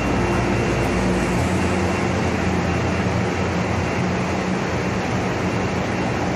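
Milling plant machinery running: a loud, steady industrial din with a low hum underneath, shifting slightly in the low end about a second and a half in.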